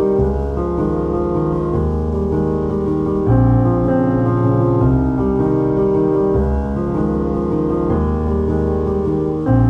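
Background instrumental music: sustained chords changing about every second.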